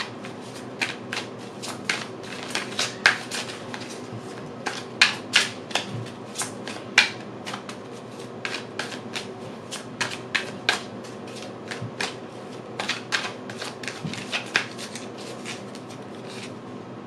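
A deck of oracle cards being shuffled by hand, the cards clicking against each other in quick, uneven snaps a few times a second. The snaps stop shortly before the end.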